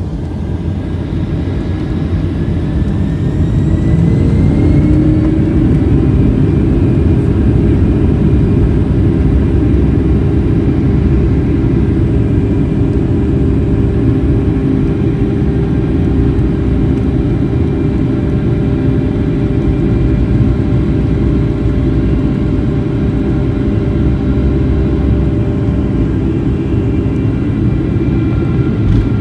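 Boeing 757 jet engines spooling up to takeoff thrust, heard from inside the cabin: a whine rising in pitch and a rumble growing louder over the first few seconds, then a steady heavy roar with a constant whine during the takeoff roll.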